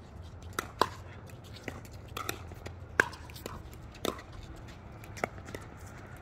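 Pickleball rally: sharp pops of paddles striking the hollow plastic ball, several irregular hits over the few seconds, the loudest about three seconds in.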